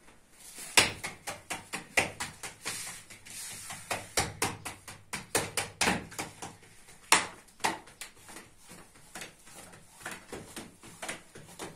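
Flatbread dough slapped and tossed between a baker's bare hands as it is stretched: quick, irregular slaps, a few a second, with short pauses.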